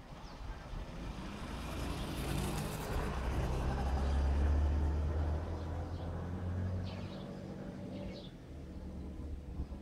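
A heavy engine's low, steady drone swells to its loudest about halfway through and drops away at about seven seconds, with a hiss about two seconds in.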